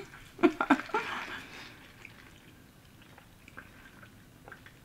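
A person eating: a brief voiced sound about half a second in, then faint chewing with scattered small mouth clicks.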